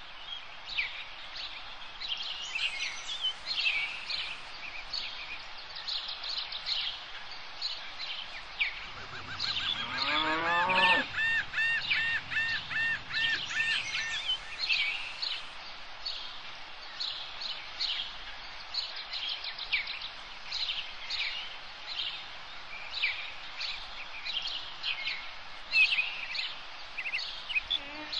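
Woodland birds chirping and singing, many short calls overlapping. About nine seconds in, a louder pitched call rises and then repeats quickly for several seconds before stopping.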